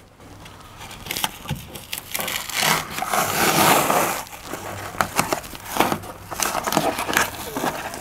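Self-adhesive closed-cell foam insulation (van liner) being peeled and torn off the inside of a van's metal side panel, crackling and ripping in short bursts as the sticky adhesive lets go, with a longer tearing stretch about halfway through.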